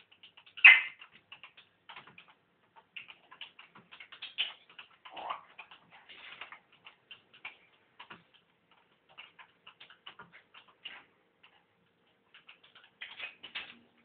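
African grey parrot making a scattered run of short, quick clicks and ticks, with a loud sharp sound about a second in and a few more louder ones around four to five seconds in.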